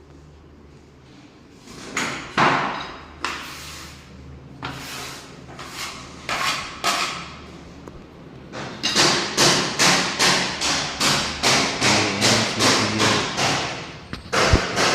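Hammer blows: a few scattered strikes, then steady hammering at about two to three blows a second from about nine seconds in.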